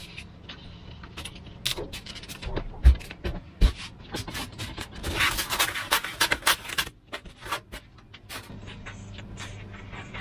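Handling noise from Depron foam sheets and tools on a workbench: scattered clicks and knocks, two heavy thumps about three seconds in, and a scraping rustle of foam from about five to seven seconds in.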